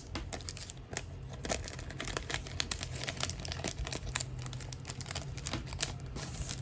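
Plastic card packaging crinkling in irregular crackles as trading cards are handled and taken out, over a low steady hum.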